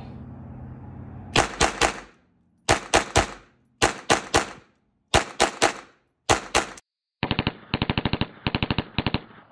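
Glock 44 .22 LR pistol firing, a magazine fitted with a +5 extension being emptied in quick strings of three or four shots. About seven seconds in comes a long, very fast, even run of about twenty shots that sounds duller.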